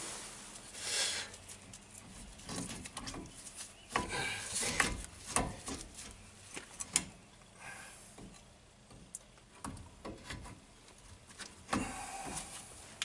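Irregular metal clinks and scraping as brake caliper bolts are fitted and threaded in by hand.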